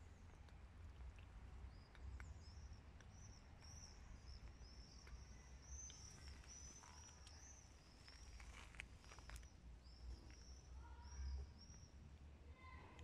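Near silence with a bird singing faintly in the background: a long run of short, high, repeated chirps that stops about three-quarters of the way through. A few soft clicks come a little past the middle.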